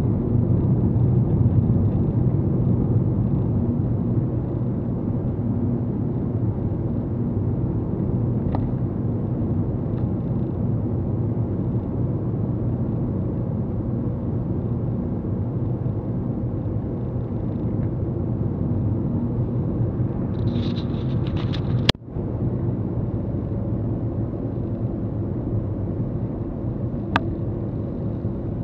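Steady low rumble of road and engine noise inside a moving car's cabin at moderate speed. About two-thirds of the way through there is a sharp click with a brief dropout, and a smaller click comes near the end.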